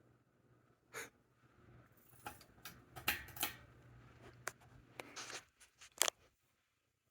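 A series of sharp clicks and short rustles, over a low steady hum that stops about six seconds in.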